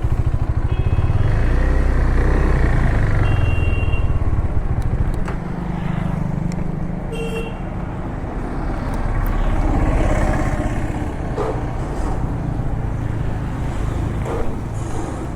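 Road traffic with motorcycle engines running. Vehicle horns give short toots three times, at about 1, 3 and 7 seconds in. A heavy engine rumble is loudest in the first five seconds, then eases into general street noise.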